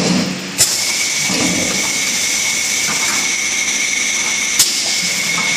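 A 3-in-1 water bottle filling machine for 5-gallon bottles running: a sharp clack about half a second in as the line shifts the bottles, then a steady loud hiss with a thin high whine under it, and another clack about four and a half seconds in.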